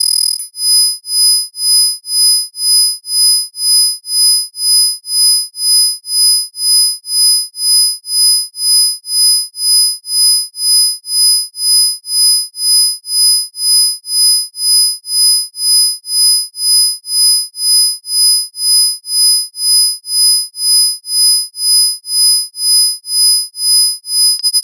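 High, pure electronic sine tones, strongest near 5 kHz and 10 kHz, pulsing on and off about twice a second: a 2 Hz isochronic tone.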